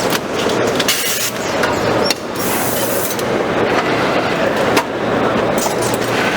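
Foliopack APM 600S automatic bagging machine running: a steady mechanical clatter with irregular sharp clacks.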